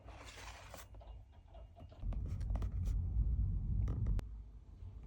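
Blind box packaging being handled and opened: a short rasp of tearing or sliding at the start, then rustling and a few sharp clicks as the box is handled.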